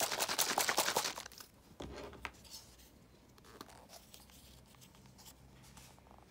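A plastic bottle of liquid prescription dog food shaken hard, a dense rapid rattle and slosh for about the first second. After it come a knock and faint clicks of a plastic syringe being handled at the bottle.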